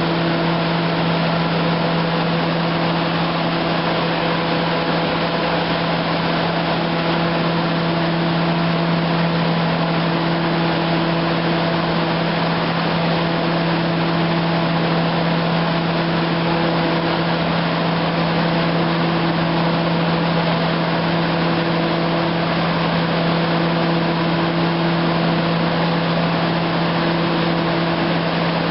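Demag H285S hydraulic mining shovel running steadily while one raised crawler track turns freely in the air, being spun to time its rotations in a check of the travel system. A constant machine hum with a steady pitch and a higher tone that comes and goes every second or two.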